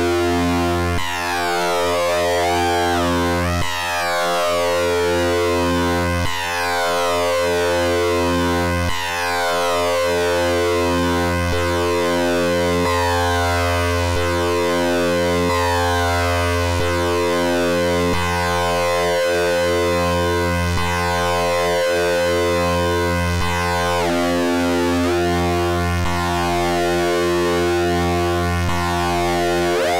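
Modular synthesizer drone: Rossum Trident oscillators wave-spliced through a Klavis Mixwitch switch, with distortion added in parallel, holding one steady low note rich in overtones. The upper overtones sweep up and down continuously, and there is a slight dip in loudness about every two and a half seconds.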